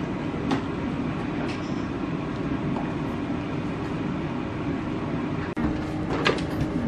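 A steady mechanical rumble with a few faint clicks, briefly cut off about five and a half seconds in.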